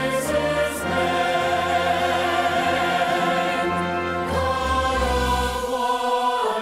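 Choir singing a worship song in long held notes over instrumental backing.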